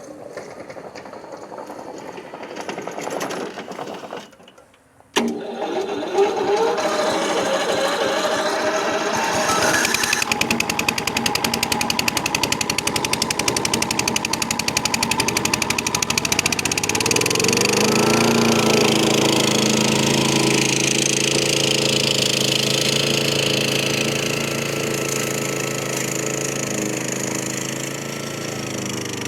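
Small gasoline engine of a remote-controlled tracked mower running with its cutting deck turning. It comes in suddenly about five seconds in, then rises in pitch a little past halfway and holds at the higher speed.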